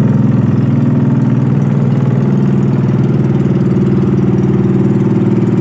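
Small engine running steadily at an even speed, a constant drone with no change in pitch.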